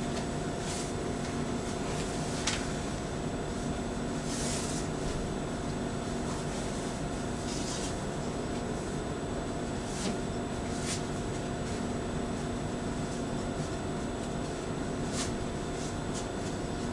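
Steady room hum and hiss with a few faint rustles and soft ticks, as a cloth apron is handled and tied on.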